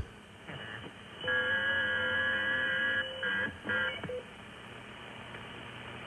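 Receiver audio from an Icom IC-7610 HF transceiver as it is tuned across the band. Background hiss, then about a second in a signal of several steady tones sounding together for about two seconds. The tones cut in briefly twice more as the dial moves, and then only band hiss remains.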